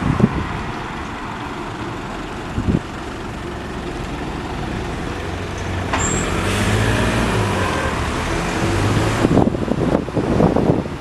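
Single-deck diesel bus idling at a stop; about six seconds in comes a short high squeal and a hiss of air, and the engine revs as the bus pulls away past.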